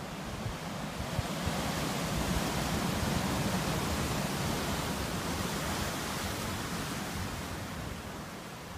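Ocean surf breaking over a shoreline of dark boulders: a rushing wash that swells about a second in and slowly eases off toward the end.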